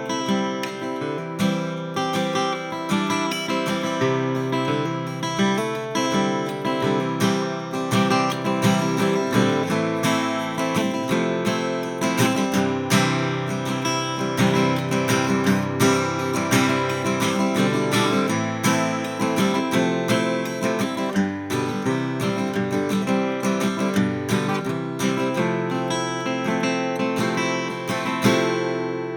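A 1959 Gibson LG2 acoustic guitar, mahogany back and sides with a spruce top, strummed and picked continuously with frequent pick attacks.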